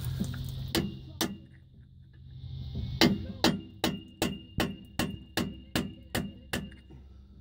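Hammer striking a steel socket extension used as a drift to drive out a stuck metal shim from a Chevy P30 rear disc brake caliper. Two blows come first, then after a pause a steady run of about ten blows at roughly three a second, each with a short metallic ring.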